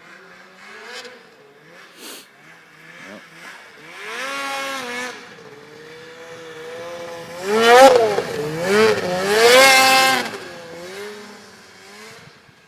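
Polaris snowmobile engine revving hard as the sled speeds around, its pitch climbing and dropping repeatedly. It is loudest from about eight to ten seconds in, as it passes close, then fades.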